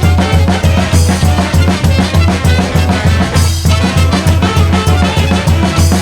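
Brass band playing an upbeat tune, brass and a low bass line over a steady drum-kit beat, with a short break in the middle parts about halfway through.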